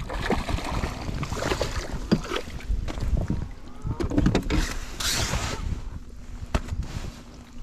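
Perch splashing at the surface beside a kayak as it is swung aboard, then rustling and knocking as it is handled, over a low rumble of wind on the microphone.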